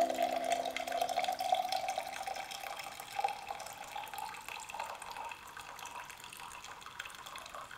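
Hot coffee poured from a French press into a glass mug: a steady trickling stream whose pitch rises a little as the mug fills, then grows quieter as the pour thins.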